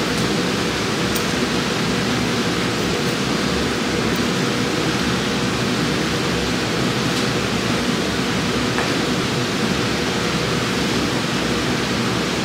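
Steady, even rushing noise with a faint steady hum, unchanging throughout.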